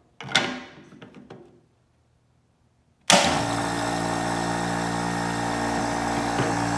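Small 12-volt Everflow diaphragm pump starting suddenly about three seconds in and running with a steady hum, overvolted on a 20-volt DeWalt battery. Before it, a few light clicks from handling the battery adapter.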